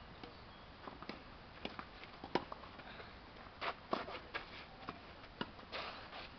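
Tennis rally on a clay court: a string of sharp knocks as the ball is struck by rackets and bounces, with footsteps and a brief scuff of shoes on the clay near the end.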